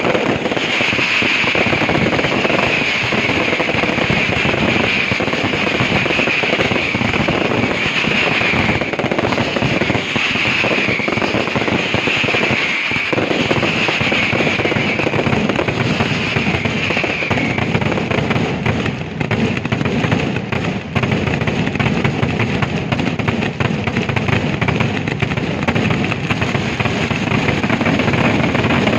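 Aerial fireworks display going off in a dense, continuous barrage of bangs and crackles, with a high crackling hiss pulsing over roughly the first half.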